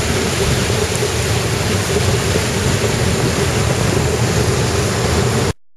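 Steady loud rush and rumble of a train running through floodwater over submerged tracks, with wind noise on the microphone. It cuts off suddenly near the end.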